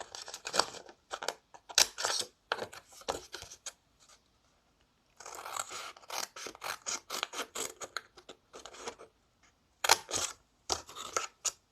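Scissors snipping through cardstock in a quick series of short, crisp cuts and clicks, with a brief pause about four seconds in.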